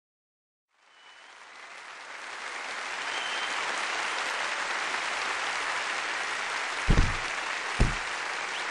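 Applause fading in from silence and settling into steady clapping, with a few short whistles over it. Two heavy low thumps land near the end.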